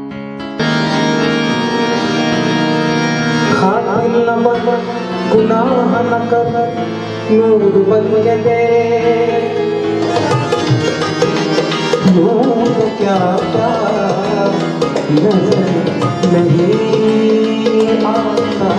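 Live Indian classical-style music: a man singing in wavering, ornamented lines to tabla accompaniment. It opens with a few seconds of held, steady instrumental tones, and the tabla strokes become busier and louder from about ten seconds in.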